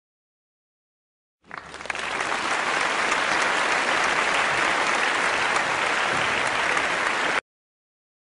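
Crowd applause, added to the soundtrack, that starts about a second and a half in, builds quickly to a steady level and then cuts off abruptly.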